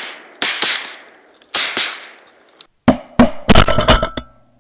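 A volley of 12-gauge shotgun blasts from several duck hunters firing at incoming ducks. Shots come at intervals over the first two seconds, then a rapid, louder burst of close shots follows about three seconds in.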